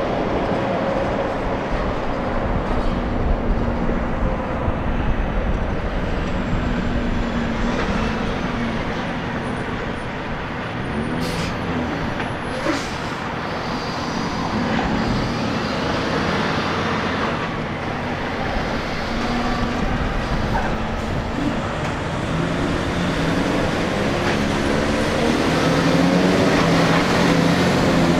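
Semi trucks' diesel engines and tyres passing close by on the road, one big rig after another. Near the end an engine's pitch rises as a truck pulls past.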